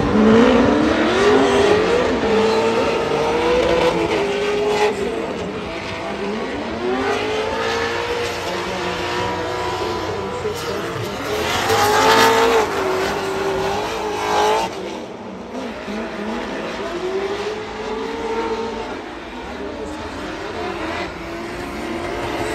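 Two drift cars sliding in tandem, their engines revving hard and the pitch rising and falling again and again through the run. It is loudest about a second in and again about twelve seconds in.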